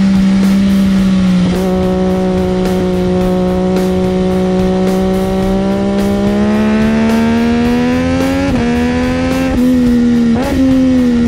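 Sportbike engine heard on board under way, held at steady high revs that climb slowly through a long bend. About two-thirds of the way through and again near the end, the note jumps abruptly with quick gear changes.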